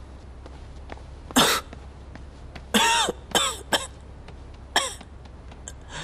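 A young man coughs hard about six times, choking on food he has gulped down while starving.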